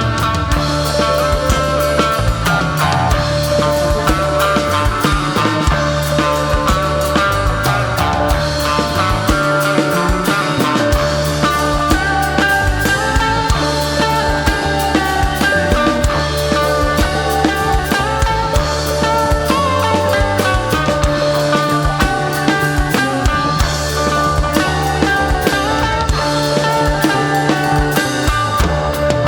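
A live rock band playing: electric guitar, bass and drum kit, the drums keeping a steady beat, heard through the concert sound system.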